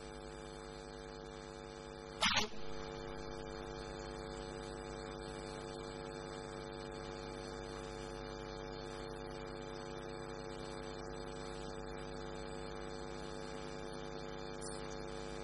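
Steady electrical hum with a buzz of even overtones, unchanging in pitch and level. A single short, sharp sound comes about two seconds in.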